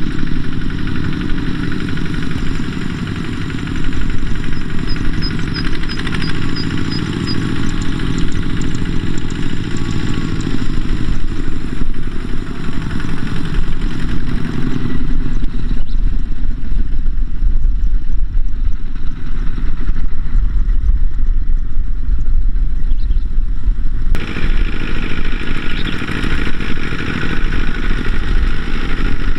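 Small single-cylinder diesel engines of two-wheel hand tractors running steadily with a clatter as they haul trailers of rice sacks.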